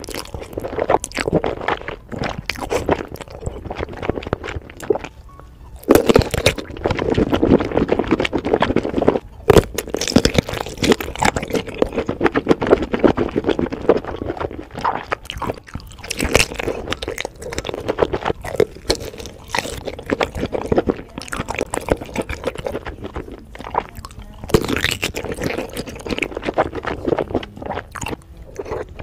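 Close-miked eating sounds: noodles in thick dark sauce slurped, and bites of a large smoked sausage chewed, wet and crackly with a dense run of small clicks and smacks. It gets louder about six seconds in and again about ten seconds in.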